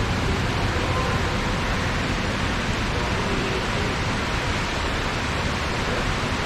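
Steady, even rushing noise with no distinct events: the ambient sound aboard a ride boat gliding through a greenhouse.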